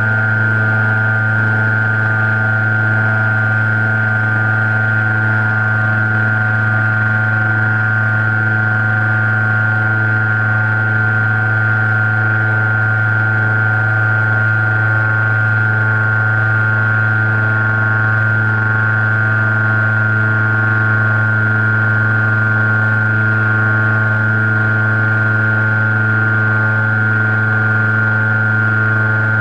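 Model airplane's motor and propeller running at a steady cruise throttle, picked up by the camera on board: a low drone with a steady high whine over it, unchanging in pitch.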